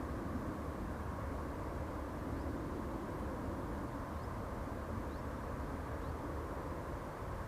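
Airliner engines and airflow giving a steady, even low rumble.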